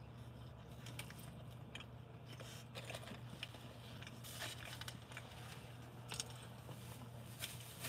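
Faint eating and handling noises: a biscuit being chewed, with small rustles and clicks as things are moved, over a steady low hum inside a vehicle.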